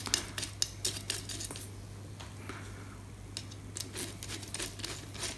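Light clicks and taps of small metal parts being handled: a bolt fitted through an antenna element and a screwdriver bit set onto its head. The clicks come in two clusters with a quieter stretch around the middle, over a steady low hum.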